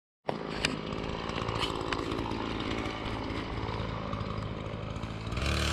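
Gasoline engine-driven saw running steadily with a ragged cutting noise and scattered clicks. It grows louder near the end as the engine revs up.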